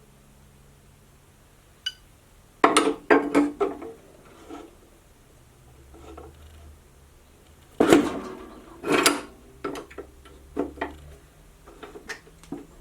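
Metal clanking and knocking, as of metal stock and saw parts being handled and set down. A sharp cluster of hits comes about three seconds in, a louder one about eight seconds in, and lighter taps follow.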